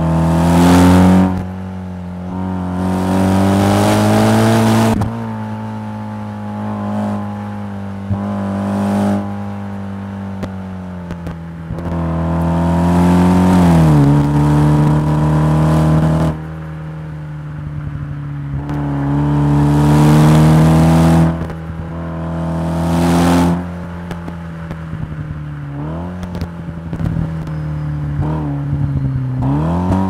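Mitsubishi Lancer Evo X's turbocharged 2.0-litre four-cylinder engine heard from inside the cabin, pulling hard up a twisty road: its pitch climbs under throttle with a rushing hiss on top, then drops at each lift-off or gear change, five or six times over. Near the end it gives a few quick dips and rises.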